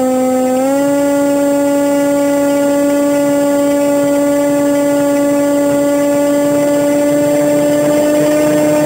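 Zagi flying wing's motor and propeller running in flight, a loud steady hum heard up close from a phone riding on the plane. The pitch steps up slightly about half a second in and then holds.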